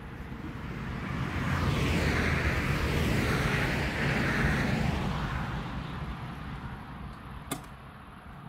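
A vehicle passing by: its noise swells up, peaks around three to four seconds in, then fades away. A single sharp click comes near the end.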